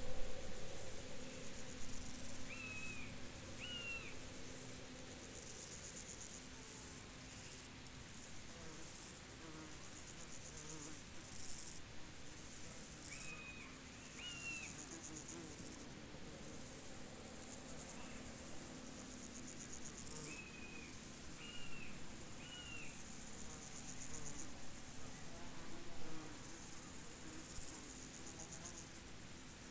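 Field crickets and other insects chirping in pulsed stretches that come and go, with a bird's short two- or three-note call repeating about every nine seconds.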